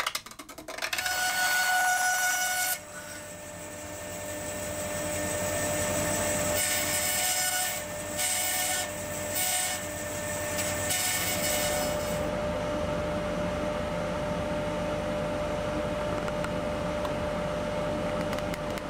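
Bandsaw running and cutting a thin round of wood. Stretches of cutting noise come and go over the first half, then only the machine's steady hum carries on.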